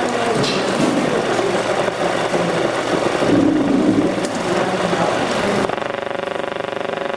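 Dense, machine-like noise that switches abruptly about six seconds in to a steady buzzing drone with a fast, even flutter.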